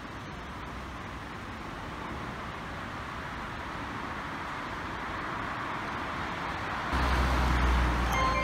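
Steady hiss and rumble of a railway station platform that slowly grows louder. About seven seconds in it steps up louder, with a low hum from an electric train standing at the platform, and a chiming melody starts just before the end.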